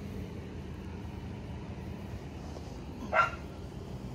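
A dog gives a single short bark about three seconds in.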